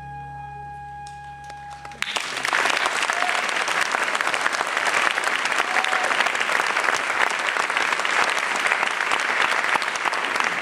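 The accompaniment's final held chord, with a deep bass note, cuts off about two seconds in, and an audience at once breaks into loud, steady applause.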